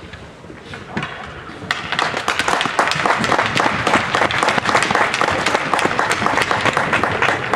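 Spectators applauding, a dense patter of hand claps in the rink that swells suddenly about two seconds in.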